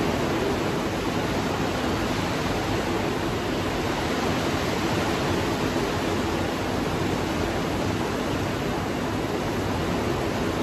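Steady, even hiss of background room noise, with nothing else standing out.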